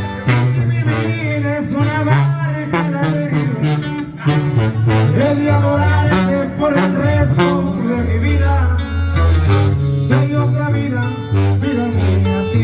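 Instrumental music with a tuba playing a low bass line of held notes under the melody.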